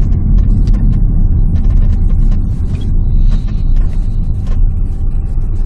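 Steady low rumble of a 2008 Renault Samsung QM5 heard from inside the cabin while driving, with a few faint clicks.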